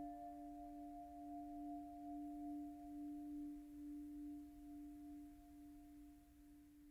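A bell's low note dying away slowly after being struck, its hum wavering a little as it fades.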